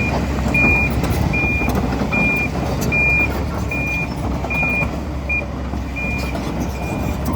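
Kobelco SK210LC-9 excavator with its Hino diesel engine running steadily, while a warning alarm beeps a little faster than once a second, its beeps growing fainter near the end.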